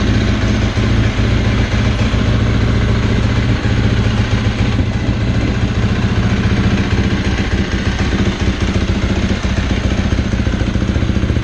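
2018 Husqvarna FC350's single-cylinder four-stroke engine idling steadily.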